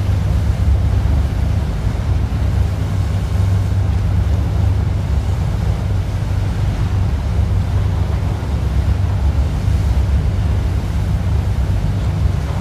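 Boat under way on open water: a steady low engine rumble, with water rushing past the hull and wind on the microphone.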